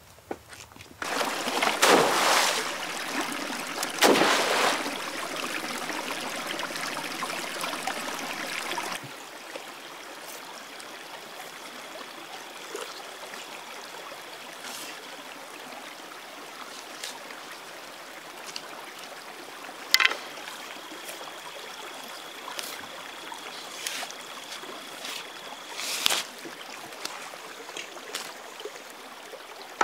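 Stream water running steadily, with a few sharp snaps from bark being stripped from thin sticks. For the first nine seconds a louder noise with two sharp knocks covers it, and a thin, high, steady tone comes and goes in the background.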